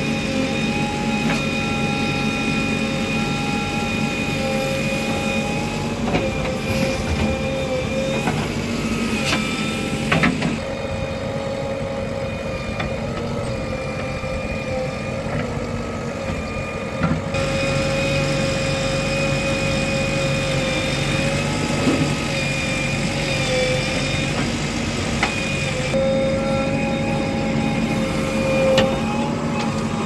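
JCB 3DX backhoe loader's diesel engine working under load, with a steady whine that wavers in pitch as the hydraulics move the arm. A few short knocks come from the bucket and soil.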